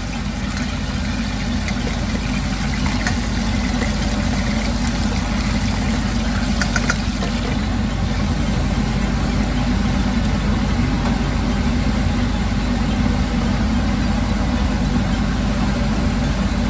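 Pork chops deep-frying in a covered stainless pot of oil: a loud, steady sizzling and bubbling, with a couple of light clinks from the glass lid and tongs.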